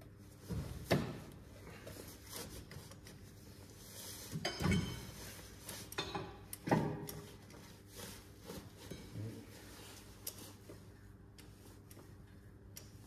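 Irregular clunks and scraping of metal parts and tools being handled, with a few louder knocks about one, five and seven seconds in.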